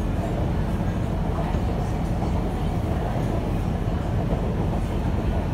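Siemens C651 metro train running, heard from inside the carriage: a steady low rumble from the wheels and running gear on the track.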